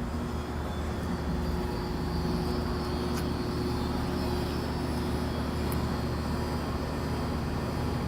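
Steady hum of road traffic mixed with an air-conditioning unit running, with a low drone throughout.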